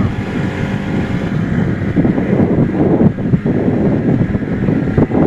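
Wind buffeting the microphone of a motorboat under way, over the boat's engine running steadily and the hull moving through the water.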